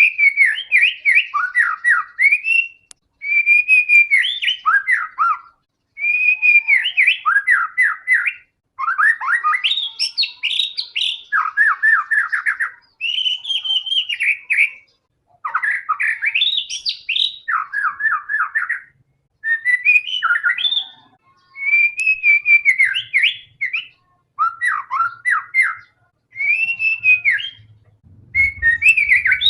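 White-rumped shama singing in full song: a string of loud, varied whistled phrases, each a second or two long with short pauses between, mixing clear rising and falling whistles with quick falling runs of notes.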